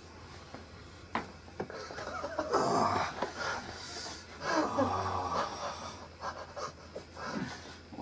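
A person breathing heavily during a neck manipulation: two long, noisy breaths about three and five seconds in, with smaller ones after. A couple of short clicks come in the first two seconds.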